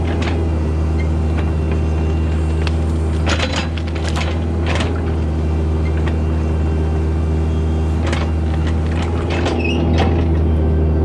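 Diesel engine of heavy earthmoving equipment running steadily, with several sharp metallic knocks or clanks over it.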